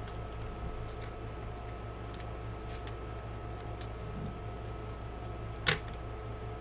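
Chromium trading cards being handled and flipped by hand, giving a few faint ticks and one sharp click a little before the end, over a steady low hum.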